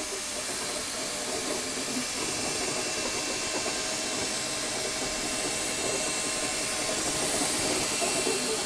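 Ultimaker 2 3D printer's fans running: a steady, even hiss with a faint constant high whine.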